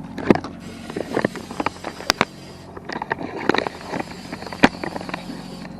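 Boat motor running with a steady hum, under a scatter of irregular sharp knocks and clatters, the loudest a few seconds apart.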